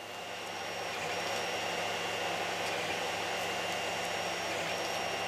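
A 3D printer running a print: a steady whirring hum from its fans and motors, fading in over about the first second.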